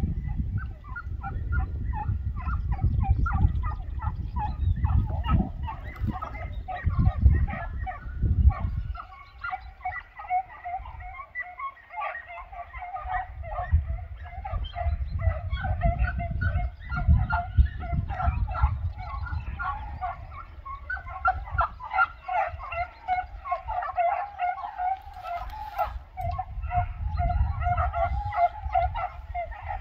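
A pack of hunting hounds baying, many overlapping voices calling without a break as they run a hare's trail, heard at a distance. Wind rumbles on the microphone at times, strongest in the first several seconds.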